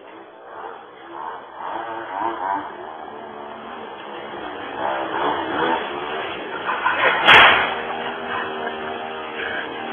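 Go-Ped motor scooter's small engine revving up and down, with one loud crash about seven seconds in as the scooter wrecks.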